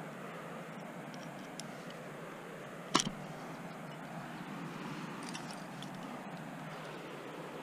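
One sharp metallic click about three seconds in, a carabiner gate snapping as a quickdraw is clipped to a cam placed in the crack. A steady low hiss runs underneath.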